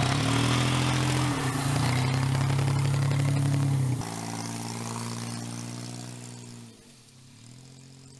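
1990 Pontiac Firefly's small three-cylinder engine running, fed from a plastic boat tank used as an external fuel tank. Its pitch dips briefly and returns about a second in. About four seconds in it is suddenly quieter and farther off, and near the end its note falls and rises again as it fades.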